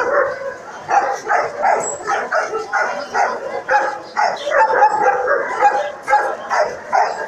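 Young Rottweiler barking aggressively in a rapid run of short barks, about two a second, mixed with higher yips.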